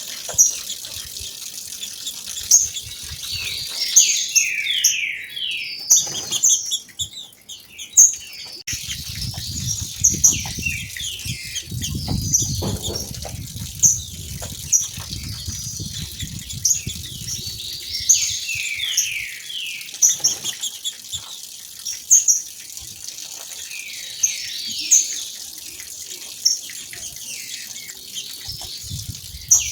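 Two female green-winged saltators (trinca-ferro) calling, with repeated sharp high calls every second or so and now and then a short run of quickly falling notes. A waterfall rushes low underneath.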